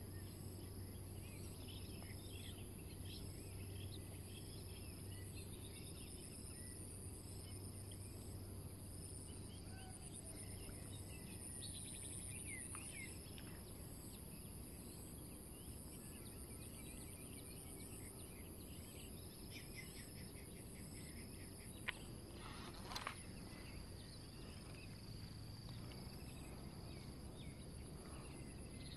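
Outdoor insect chorus: a steady high buzzing with a fast even pulse, with scattered short bird chirps over it. A sharp click and a brief rustle come about three-quarters of the way through.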